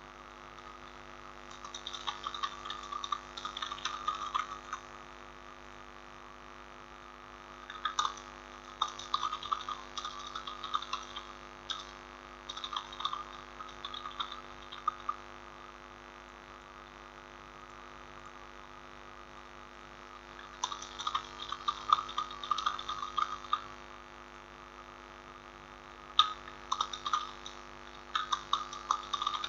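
Computer keyboard typing in several short bursts of quick clicks with pauses between, over a steady electrical mains hum.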